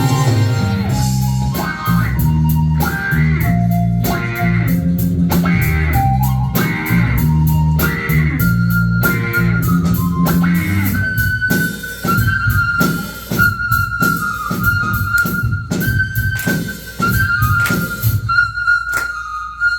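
Live rock band playing an instrumental passage: a repeating bass and guitar riff with drums, then, about halfway through, pan flute takes up a high held melody over the drums.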